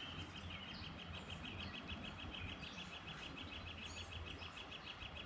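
Quiet outdoor ambience: a steady high, rapid pulsing trill of about ten pulses a second, with a few faint short bird chirps above it and a low steady rumble underneath.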